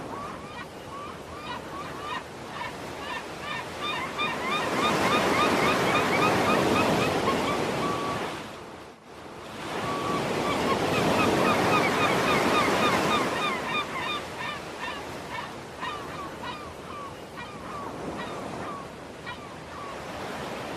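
Sea waves washing onto the shore, swelling up twice with a brief lull between, under a flock of birds giving many short, rapid calls throughout.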